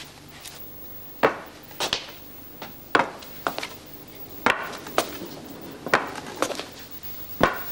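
A scattered series of sharp knocks and clacks from hard objects, about ten at uneven intervals.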